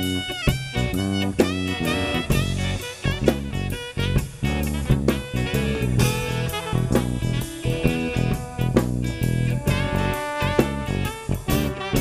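Live band playing an instrumental passage without vocals: drum kit with cymbal crashes driving a steady beat, guitar, and saxophone and trombone.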